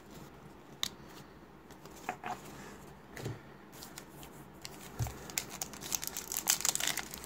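A few light taps of cards being handled, then from about five and a half seconds in a foil trading-card pack wrapper crinkling and tearing as it is opened.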